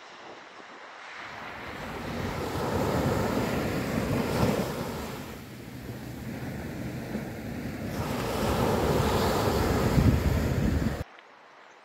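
Sea waves surging against the shore, swelling twice, with wind buffeting the microphone. The sound cuts off abruptly about a second before the end.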